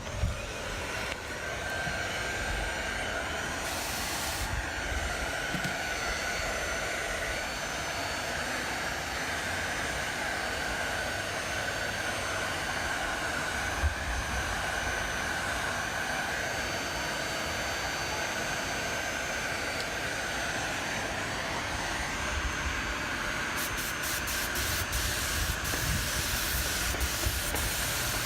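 Automotive paint spray gun hissing steadily as it sprays base coat onto a car bumper.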